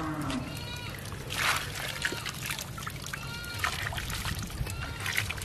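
Shallow water splashing and dribbling as a wet cast net is handled and fish are picked out of it, with a brief louder splash about a second and a half in.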